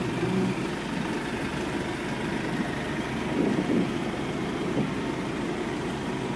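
City street traffic: a light box truck's engine runs close by at the start as it pulls away past the crossing, then the steady rumble of passing cars.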